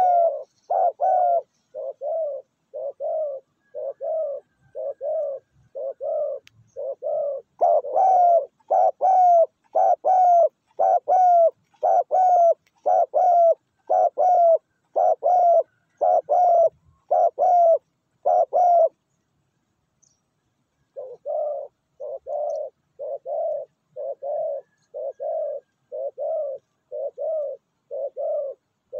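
Spotted dove cooing: a steady run of short, repeated coos, about three every two seconds, that stops for about two seconds two-thirds of the way in and then resumes more softly. Faint high chirps of small birds sound over the middle stretch.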